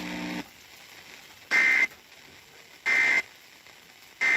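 Emergency Alert System end-of-message (EOM) signal: three short bursts of digital data tones, about a second apart, marking the end of the warning message. A low steady hum cuts off just before the first burst.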